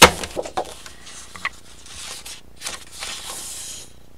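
Sheets of 12x12 cardstock being handled: a sharp, loud tap at the very start, a few lighter taps, then the paper sliding and rustling as a sheet is picked up and lifted, louder about two to four seconds in.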